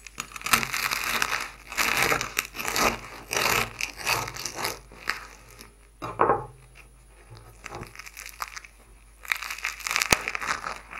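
A sharp knife sawing through the crisp crust of a freshly baked, still-hot loaf of bread, the crust crackling and crunching in several bursts with pauses between, a sign of a well-baked crunchy crust. A last burst near the end ends in a sharp crack.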